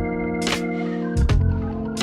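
Organ music playing held chords that change about every second, each change marked by a short percussive hit.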